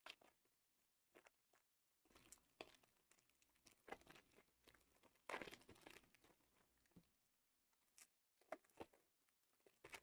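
Faint crinkling and tearing of Panini Contenders foil card-pack wrappers as they are opened by hand: scattered crackles, with a longer crinkle a little past the middle.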